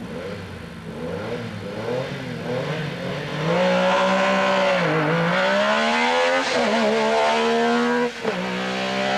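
Metro 6R4 rally car's V6 engine revving hard under acceleration. It grows louder over the first few seconds, then its pitch dips and climbs back twice, about five seconds in and sharply near eight seconds, as it changes gear.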